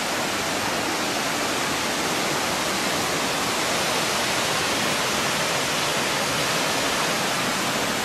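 Waterfall rushing steadily, an even hiss of falling water.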